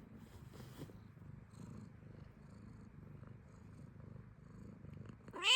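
Domestic cat purring steadily, then a loud meow that starts just before the end.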